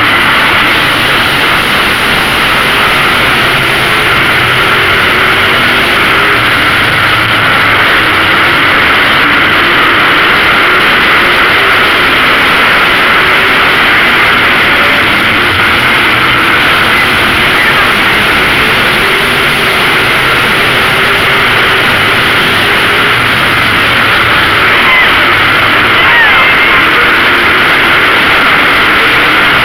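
Pack of late model race cars running laps, their V8 engines making a loud, steady, unbroken roar.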